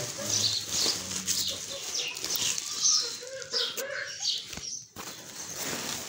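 Woven plastic feed sack rustling and crinkling as it is gripped, folded back and opened, in irregular scrunches.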